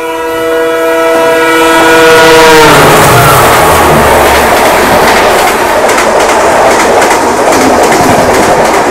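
A passing passenger train's horn sounds as a chord of several steady tones, its pitch dropping slightly as it cuts off under three seconds in. The loud rush and rattle of the train's coaches going by close alongside follows.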